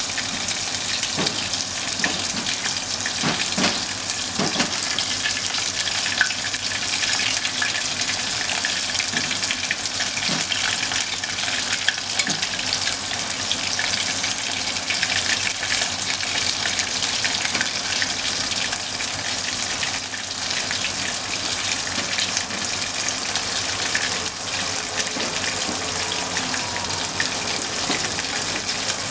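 Bone-in kalbi short ribs deep-frying in hot oil in a copper pot: a steady, dense sizzle with fine crackling. A few soft knocks in the first five seconds as chopsticks turn the meat.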